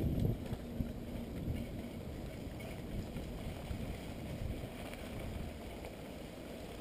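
Wind buffeting the microphone and the low rumble of a mountain bike riding over a rough dirt trail, with a loud jolt right at the start.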